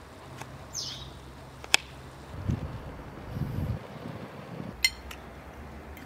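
Outdoor food-preparation handling sounds: a sharp click about two seconds in and another near the five-second mark, with soft low rustling between them. A short, falling bird chirp comes about a second in.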